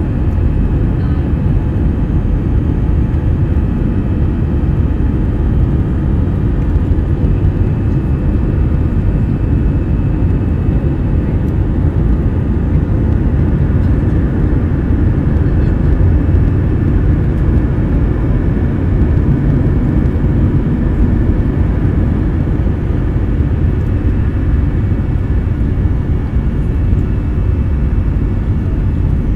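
Airbus A320 jet engine and airflow noise heard inside the cabin in flight shortly after takeoff: a steady low rumble with faint steady whining tones above it.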